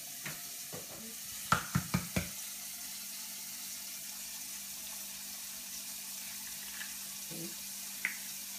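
An egg knocked four times in quick succession against a bowl's edge to crack it, four sharp knocks about a second and a half in, over a steady background hiss.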